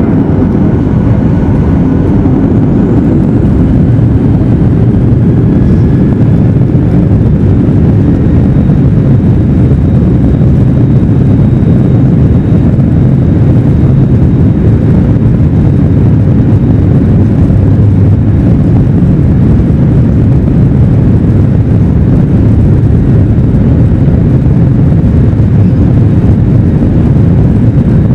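Cabin noise inside a Boeing 737-800: a loud, steady rumble of its CFM56 jet engines and airframe, heavy in the low end and unchanging throughout.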